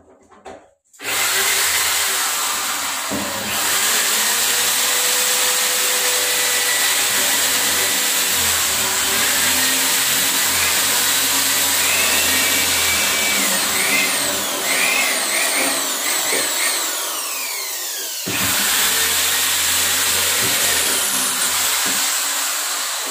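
Corded electric drill running at length, drilling overhead into a wall cabinet. Its loud whine breaks off briefly about 18 seconds in, then starts again.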